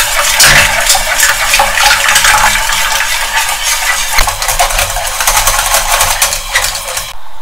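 Wire whisk clicking and scraping quickly against a stainless steel saucepan while whisking milk and egg into a thickening pastry cream. The whisking stops abruptly about seven seconds in.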